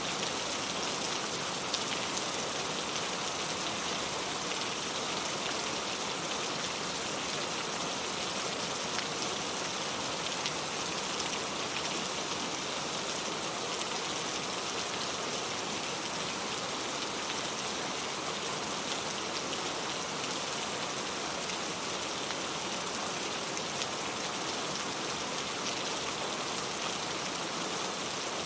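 Steady rain falling, an even hiss of many drops with fine patter on surfaces.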